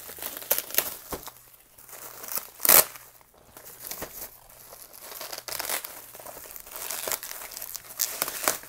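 Plastic bubble wrap crinkling and rustling in irregular bursts as it is pulled off and crumpled by hand, with one sharp, louder crackle a little under three seconds in.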